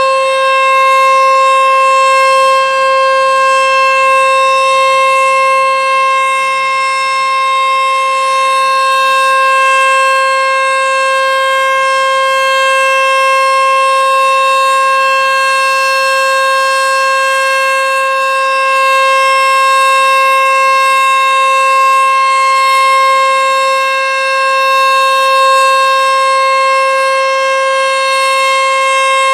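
Sentry 14V-B outdoor warning siren sounding its steady Alert signal, the tornado-warning tone, on test. It holds one loud, unwavering pitch with strong overtones.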